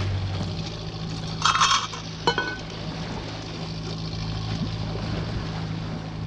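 Boat engine humming steadily. About a second and a half in comes a short hiss, followed by a sharp metallic clink.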